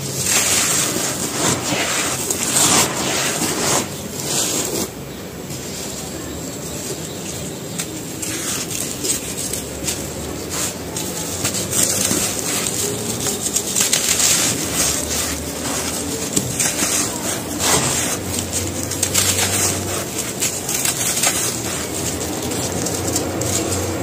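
Dry, gritty handmade cement chunks crushed and crumbled between bare hands, crumbs and dust pouring onto a powdery pile: dense crunching and crackling that eases off for a few seconds near the start, then builds again.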